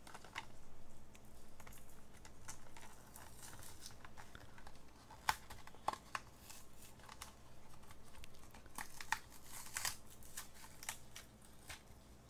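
Plastic blister and cardboard backing of a carded Hot Wheels car crinkling and tearing as the package is worked open by hand. Scattered sharp crackles and snaps run through it, the loudest about halfway and again near the end.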